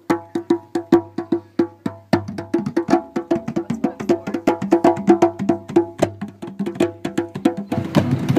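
Percussion music: a fast, even run of wooden-sounding strikes on pitched percussion and hand drums. Near the end a strummed guitar comes in.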